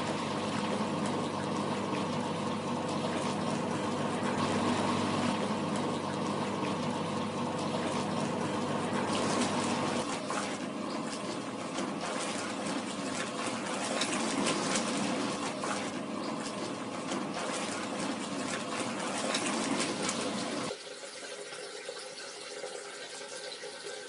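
Hoovermatic De-Luxe T5004 twin-tub washing machine running its wash: the Hoover pulsator motor hums steadily while it churns the soapy wash water, with constant sloshing and splashing. About twenty seconds in the sound drops quieter, to water running from the hose into the spin drum for the spin rinse.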